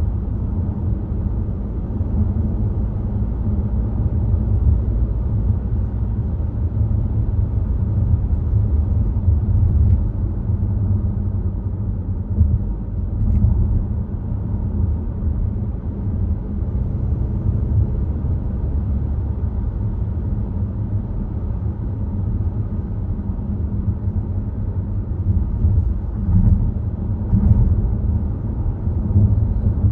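Volvo XC60 driving at road speed: a steady low rumble of engine and tyre noise, with the level rising and falling slightly.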